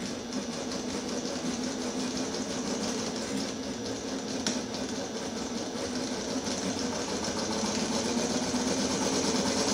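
Small model Stirling engine running and driving a helicopter's spinning rotor: a fast, steady mechanical clatter that grows gradually louder.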